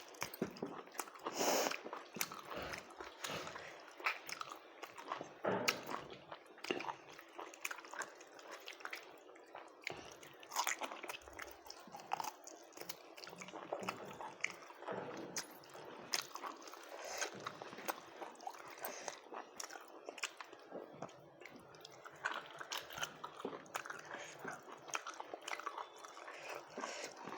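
A person eating close to the microphone: irregular chewing, crunching bites and wet mouth clicks that keep up throughout.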